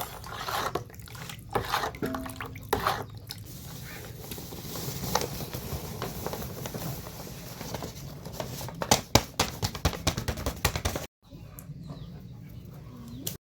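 Steady rain falling, with drips, and a cluster of sharp clicks and knocks about nine seconds in.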